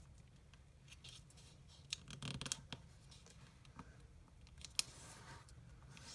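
Origami paper crackling and rustling faintly under fingertips as a folded flap is pressed and creased flat, with a cluster of crinkles about two seconds in and a sharp click about five seconds in.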